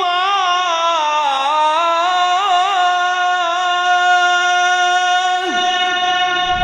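A male Quran reciter's chanting voice drawing out one long melismatic note. It winds through rapid ornamental turns for the first half, then holds a steady pitch, and slides down near the end.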